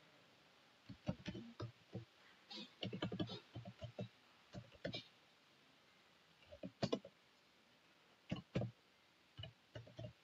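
Faint computer keyboard typing: irregular runs of key clicks with short pauses between them.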